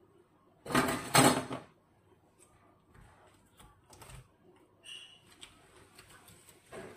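A loud rustling, scraping burst lasting about a second, about a second in. Then scattered faint clicks and small wet handling sounds as kitchen shears cut at the inside of a raw fish on a wooden cutting board.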